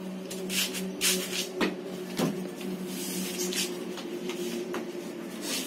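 Rustling and handling noises from paper being moved, in short irregular bursts over a steady low hum.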